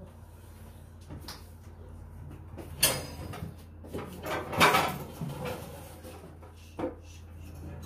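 A few soft knocks and rustles over a steady low hum: a sharp knock about three seconds in, a louder rustling knock a little after the middle, and a short click near the end.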